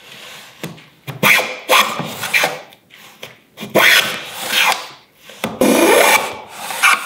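Stanley metal bench plane cutting wood on a shooting board: about six rasping strokes as the blade takes shavings, with short pauses between them.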